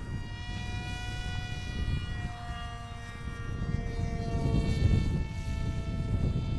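Electric motor of a cardboard F-22 Raptor RC plane in flight: a whine whose pitch falls slowly for several seconds, then climbs again near the end, over a low rumble.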